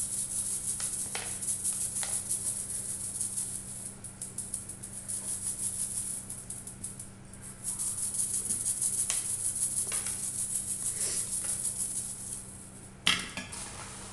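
Powdered sugar being sifted through a small metal mesh strainer that is shaken and tapped: a fast, fine, maraca-like rattle with a short pause about halfway, then a single knock near the end.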